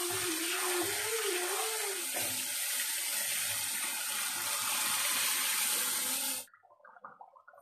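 Water poured in a steady stream into a wok of simmering beef tripe curry: an even splashing rush that cuts off suddenly about six and a half seconds in.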